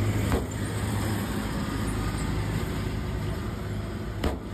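Steady low engine hum over street traffic noise, with a sharp click about a third of a second in and another near the end.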